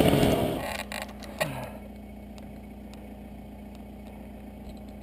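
Background music fades out in the first second or so. It leaves a quieter, steady engine hum with a single knock about a second and a half in.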